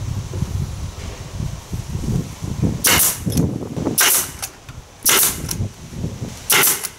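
Pneumatic nail gun firing four times into a clamped plywood panel, each shot a sharp crack, roughly a second apart.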